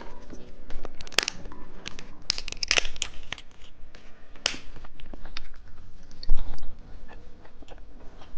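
Plastic candy wrapper being torn open and crinkled, with irregular sharp crackles, as an eyeball-shaped burst gummy is unwrapped. A single louder thump comes about six seconds in.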